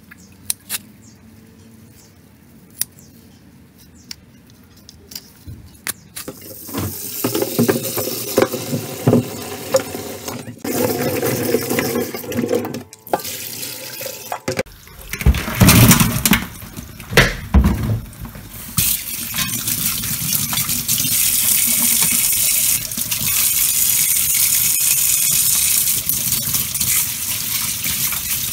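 A few sharp snips of scissors, then a kitchen tap running into a stainless steel sink. About halfway through, a plastic bowl of crayfish is tipped out and knocked against the sink with a clatter, and the tap then runs steadily over the crayfish as they are rinsed.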